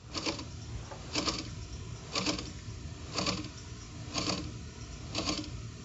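A clock ticking steadily, about once a second, over a low steady rumble.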